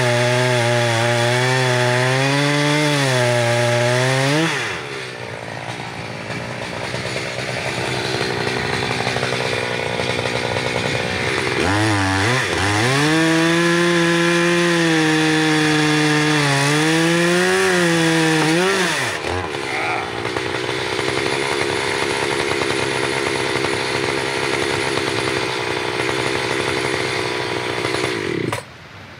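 Echo Timberwolf two-stroke chainsaw cutting a large red oak log. The engine runs at full throttle with its pitch dipping and recovering under load, drops back twice, and is shut off suddenly just before the end.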